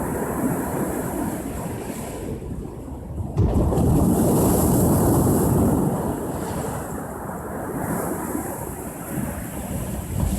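Ocean waves breaking on the shore: a steady rushing surf, with a wave crashing suddenly about a third of the way in, staying loud for a couple of seconds and then washing out, and the next one building near the end.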